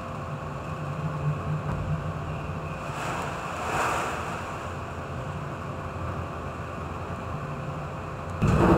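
High waves and wind at sea heard from aboard a ship in heavy weather, over a steady low hum. A wave surges by about halfway through, and a louder wave strikes suddenly near the end.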